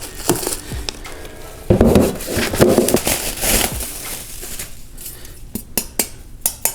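Air fryer basket and crisper tray being handled: clattering knocks and rustling from about two to four seconds in, then a few sharp clicks near the end.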